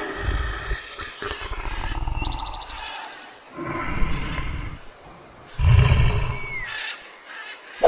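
Brown bear growling in long, low calls: one fading out about three seconds in, a second around four seconds, and the loudest about six seconds in. Birds chirp faintly in the background, and a sharp click sounds at the very end.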